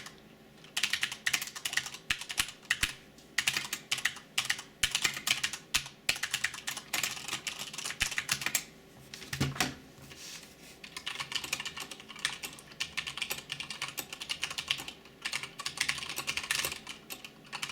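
Typing in bursts on a mechanical keyboard with Cherry MX Brown switches, a quick run of sharp key clicks, with short pauses. About halfway through there is one dull thump.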